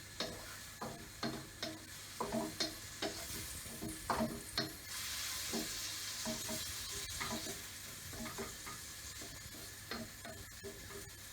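Food sizzling in a hot frying pan while a utensil stirs it, scraping and clacking against the pan several times a second; the sizzle swells for a couple of seconds about halfway through.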